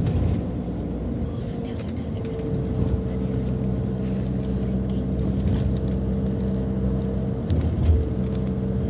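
Motor vehicle engine running steadily, a low hum with a steady drone of several tones, with a brief low bump near the end.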